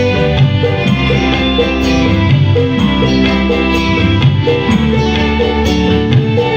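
Loud live dangdut koplo band playing through a stage PA: guitar and other pitched instruments over a steady beat from kendang and drum kit.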